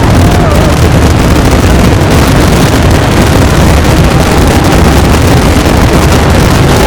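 Pyrotechnic fireworks barrage, with shells bursting so thick and fast that they merge into one loud, continuous rumble. A thin steady whistle rides over it in the second half.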